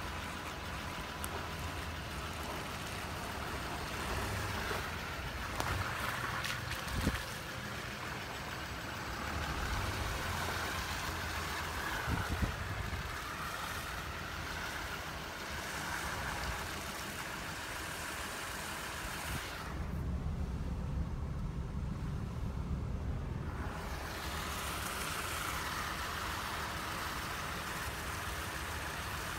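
A car running, with wind noise on the microphone that swells into low buffeting for a few seconds about two-thirds of the way through.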